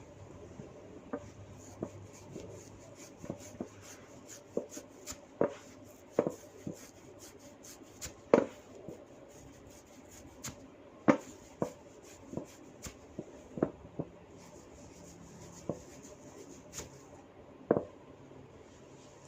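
Hair cracking: locks of long hair are gripped and tugged sharply, giving irregular snapping pops, about one a second. A few pops are much louder than the rest.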